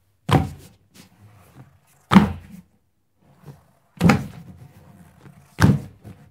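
Four heavy thuds, each fading within half a second, with fainter knocks between them: impact sound effects for a soft ball slamming and squashing onto rocks.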